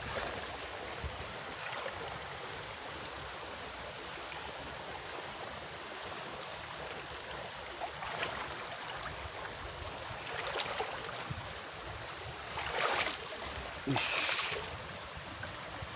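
Steady rushing of river water, with a few short, sharper rustles over it from about halfway through to near the end.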